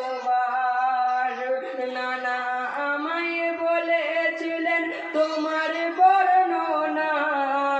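Male voices singing a Bengali marsiya, a Muharram lament for Hussain, in long held, sliding notes.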